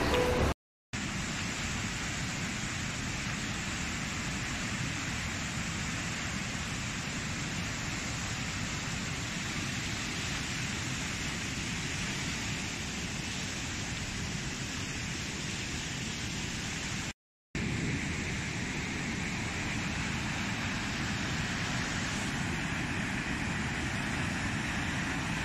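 Steady rushing of fast-flowing muddy floodwater in a swollen river. It breaks off twice into a moment of silence, about a second in and again after about seventeen seconds.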